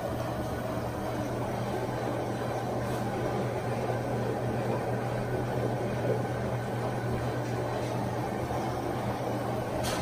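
LG front-loading washer-dryer running an empty cleaning cycle: a steady, quiet low hum from the drum motor.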